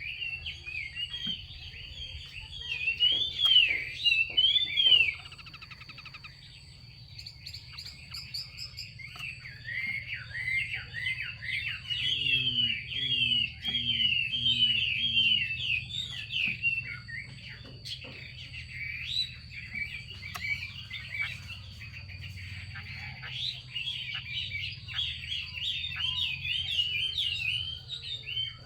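Female Chinese hwamei giving its 'xùy' call: runs of quick, repeated arched chattering notes, broken by short pauses. This is the call keepers play to stir a male hwamei into song. A thin steady high whine runs underneath.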